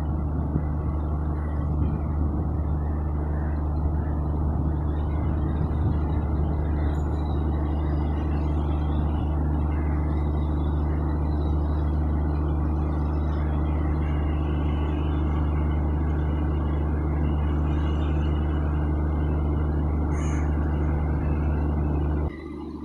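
Indian Railways electric locomotive running, heard as a steady low hum with a fixed-pitch drone and a noisy rush over it; the sound cuts off suddenly near the end.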